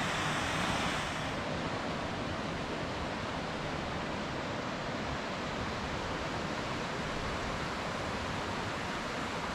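Seasonal waterfall running: a steady rush of falling water, a little brighter in the first second.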